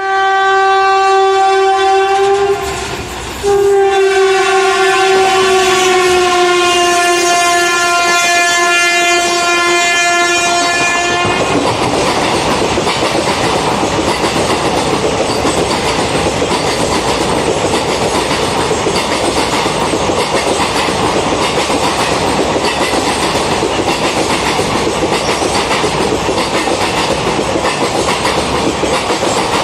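Horn of a WAP-4 electric locomotive: a short blast, a brief break, then a long blast that sags slightly in pitch as the train passes. After that the coaches of the express pass at speed, their wheels clattering steadily over the rail joints.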